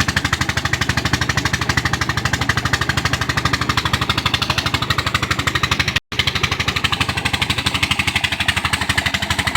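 Engine of a tube well boring machine running steadily with a fast, even thudding beat of about a dozen pulses a second, broken by a momentary gap about six seconds in.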